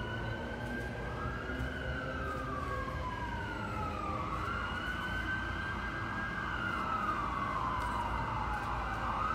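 Emergency vehicle siren wailing, its pitch rising and falling slowly with a cycle every few seconds.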